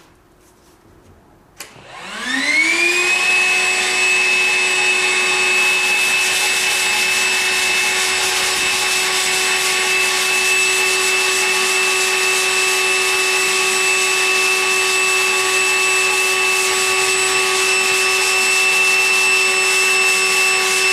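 Vacuum cleaner switched on about a second and a half in, its motor spinning up with a rising whine, then running on at a steady pitch with a loud rush of air. It is drawing suction through the hose of a vacuum sanding sponge.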